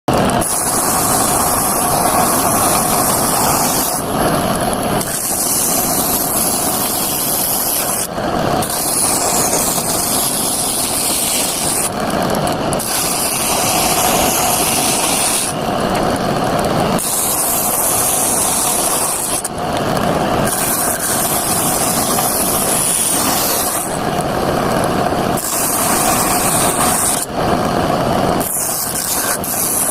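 Motorised mini saw running continuously and cutting wood, its sound shifting about every four seconds as the blade's load changes.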